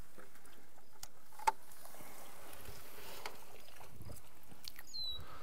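Faint water sounds with small splashes and clicks as a plastic bucket is tipped into a creek pool, over a steady quiet hiss. There is one sharp click about a second and a half in, and a short high chirp near the end.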